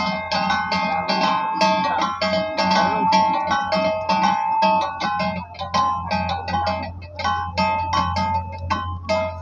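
Music of plucked guitar notes picked in a quick, even rhythm over a steady low bass note.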